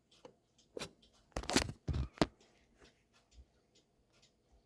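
A handful of sharp clicks and knocks from a Brother HL-2240 laser printer's paper-feed mechanism being driven forward by hand, bunched in the first two seconds or so. The feed is skipping on a piece of white plastic jammed inside.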